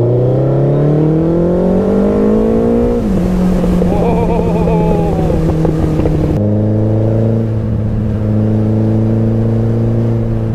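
Suzuki Hayabusa's inline-four engine pulling through a gear, its pitch rising for about three seconds, then dropping at an upshift and holding steady at cruise. A brief wavering tone sounds over it about four seconds in. About six seconds in the sound changes abruptly to a lower, steady engine note.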